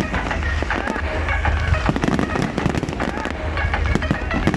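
Fireworks display: a rapid, continuous run of bangs and crackles from bursting shells, several a second, over a steady low rumble.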